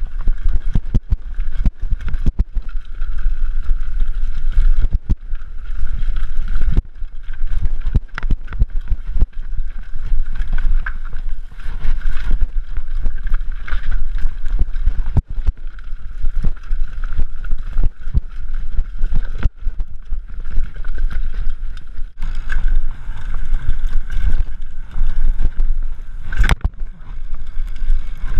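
Mountain bike rattling and clattering over rough trail at speed, with heavy wind buffeting on the microphone and a steady whirring tone underneath.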